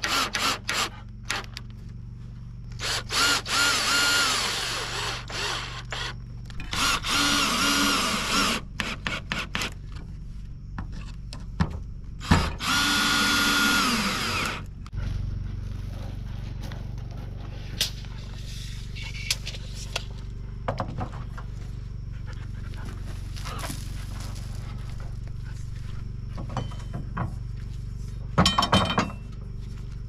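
Power drill running in bursts: quick stuttering trigger pulls at first, then three runs of a second or two, each rising in pitch as the motor spins up. The second half is quieter, with a low steady hum, a few knocks and one more short burst near the end.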